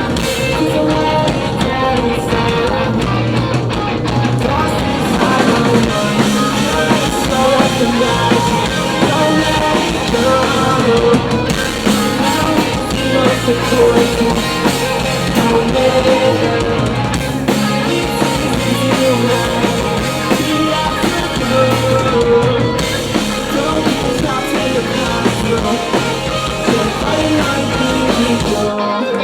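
Rock band playing live at full volume, with drum kit and guitars.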